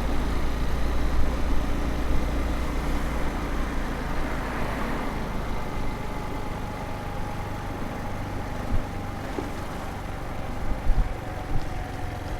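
Street traffic noise, steady road rumble with a vehicle passing about four to five seconds in, and a few short knocks near the end.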